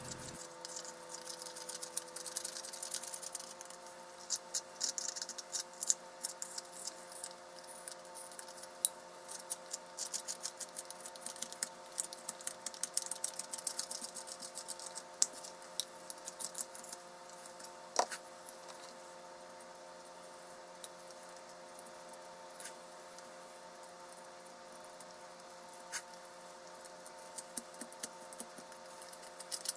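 Carving knife and hook knife shaving a wooden spoon by hand: quick scraping, ticking cuts that come thick and fast in the first half and more sparsely later, with one sharp click about two thirds through. A steady faint hum sits underneath.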